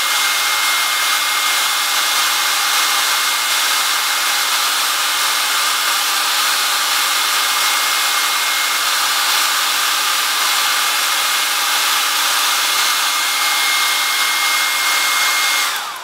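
Handheld hair dryer running on its high setting: a steady rushing blow with a steady whine over it. Near the end it is switched off and the whine falls away as the motor spins down.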